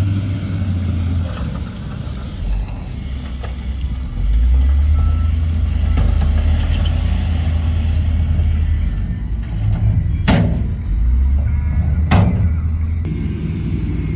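Heavy diesel construction machinery at work: engines running with a low, steady drone that gets louder about four seconds in. Near the end come two short, sharp sounds about two seconds apart.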